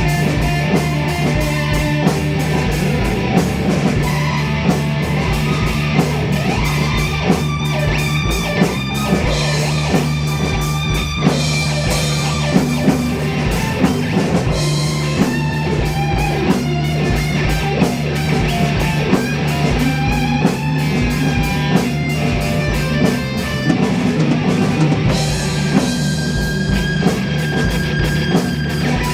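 Band jam in a psychedelic rock style: electric guitar playing over a held bass note with a drum kit keeping a steady beat.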